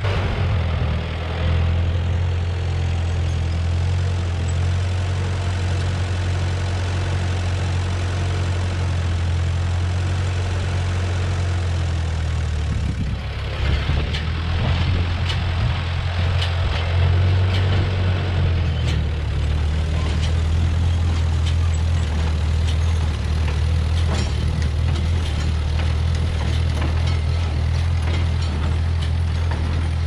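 Old farm tractor engine running steadily as it pulls a small square baler. About halfway through the sound shifts, and light rattling comes in over the engine.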